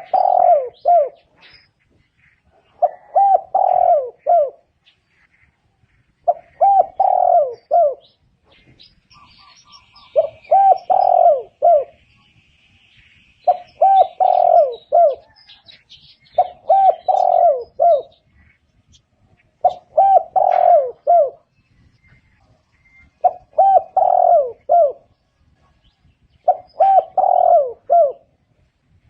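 Spotted dove cooing: the same short phrase of several notes, repeated about every three and a half seconds.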